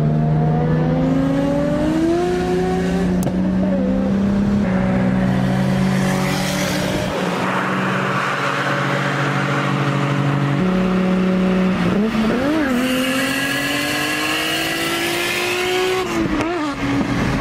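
Inline-six car engines of a turbocharged BMW E46 and an RB26-swapped Nissan Silvia S14 accelerating hard side by side in a highway roll race, heard from inside the BMW. The revs climb steadily and drop sharply at each gear change, about four times.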